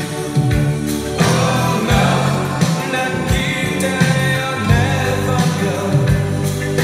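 Music playing with a steady drum beat and singing.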